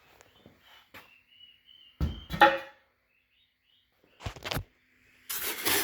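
Packaging of a new table saw being handled and moved: a sharp knock about two seconds in, a shorter knock a couple of seconds later, and a scraping rub of packing material near the end.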